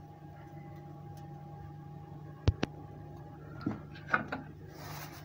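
Kitchen utensil sounds: two sharp clicks in quick succession about halfway through as the spoon is put down, then a few lighter knocks and a soft scrape as the wooden cutting board of chopped bacon is handled, over a faint steady hum.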